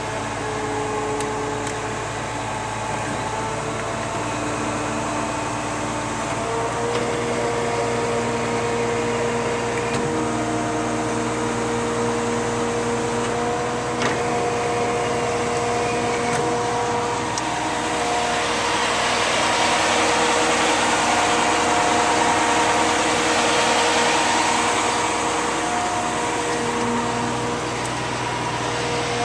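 Concrete mixer truck's Cat C-10 diesel running steadily, with several steady whining tones over a constant hum. The sound swells into a louder rush for several seconds about two-thirds of the way through.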